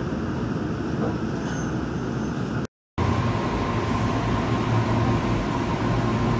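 Daegu Metro Line 3 rubber-tyred monorail train: steady running-gear and ventilation noise heard from aboard while it stands at the platform. After a sudden brief cut to silence about two-thirds of a second before the middle, the train is heard from the platform as a steady hum with a low drone and a faint high whine.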